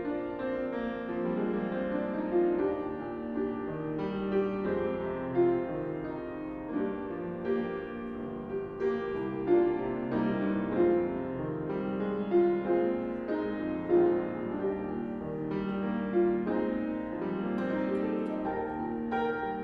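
Grand piano played solo: a slow piece of held chords, with a new chord or note struck every second or two.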